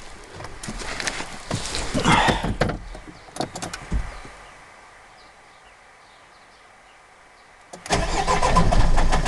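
Renault Trafic van's engine starting near the end and running with a fast, even knock, the knock the van came in for. Before that, scattered clicks and clunks, then a few seconds of quiet.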